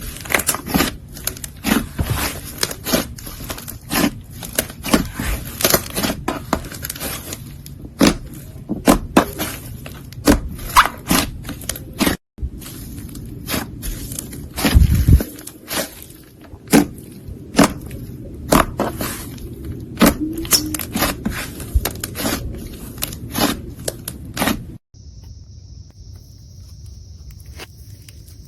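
Slime being handled, squeezed and pressed, giving an irregular rapid run of sharp pops and crackles with scraping between them. It breaks off abruptly twice, and after the second break only a steady high hiss remains.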